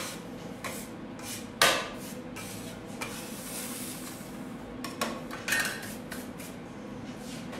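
A hand scraper scraping a floury stone worktop clean, in short strokes with scattered sharp clicks and knocks; the loudest knock comes about a second and a half in.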